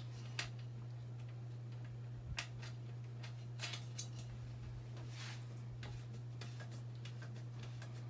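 Scattered light clicks and knocks, with one short scrape about five seconds in, as hands work the metal foot bracket and bolt at the base of an air compressor's tank, over a steady low hum.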